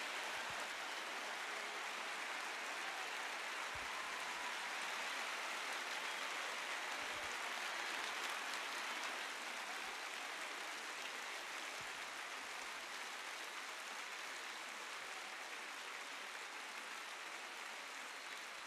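A large crowd applauding steadily, the clapping slowly dying down over the last several seconds.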